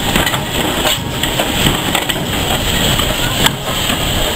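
Steam locomotive and tender running past at close range: a loud, dense noise with sharp knocks about a second in and again about three and a half seconds in.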